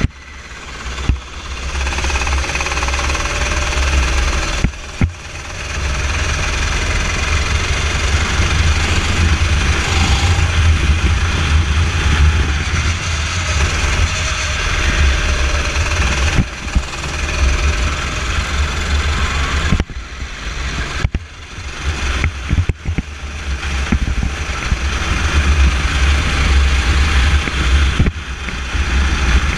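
Go-kart engine running hard at racing speed, heard through an onboard camera with heavy wind rumble on the microphone. The sound dips briefly a few times.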